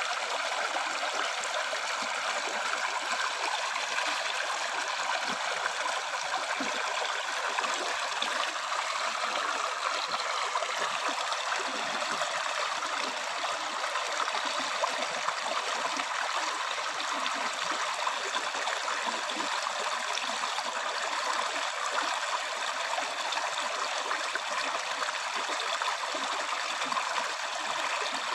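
A river or stream flowing, a steady bright rush of water with a fine trickling texture.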